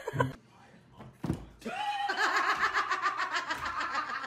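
Laughter: a long run of quick, pulsing laughs that starts about a second and a half in, after a short quieter gap.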